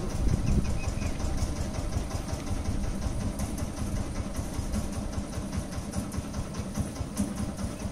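A motor running steadily with a low rumble and a faint high hiss over it.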